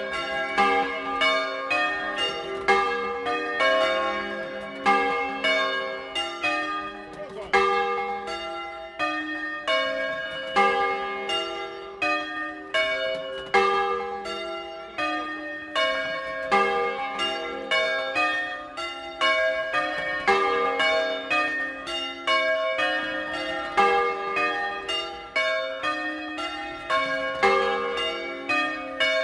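Bronze church bells of a six-bell set cast by Francesco De Poli in 1994, swung by hand with ropes in a Bolognese-style 'doppio': a continuous rhythmic peal of several strikes a second at different pitches, the notes overlapping as they ring on.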